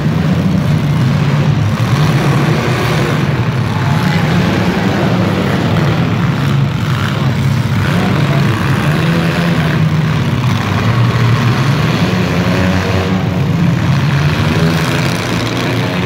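Engines of several compact demolition-derby cars running together, steady and loud, inside an indoor arena.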